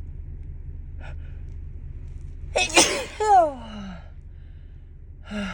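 A woman sneezes once, loudly, about two and a half seconds in: a sharp intake, then an achoo whose voice falls in pitch at the end. A short gasp comes near the end, over a low steady rumble.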